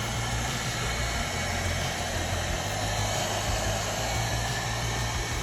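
ILIFE V8s robot vacuum running, a steady whirring hiss of its suction motor.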